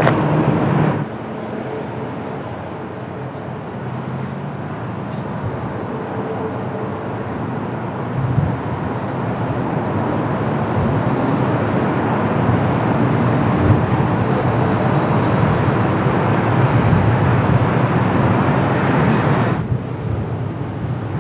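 Jet airliner noise, a steady rushing with a faint high whine, growing louder as the aircraft comes closer. The sound changes abruptly about a second in and again near the end.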